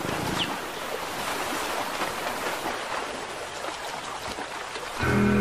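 Shallow river water rushing over stones, a steady wash of noise. Background music with long held tones comes in suddenly near the end.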